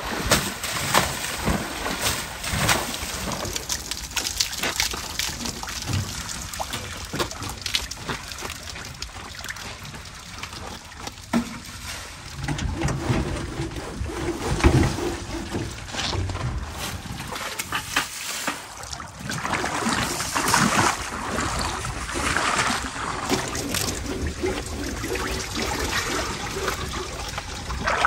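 Water trickling and splashing, with irregular rubbing and scrubbing, as a JCB backhoe loader is washed down by hand with soapy cloths.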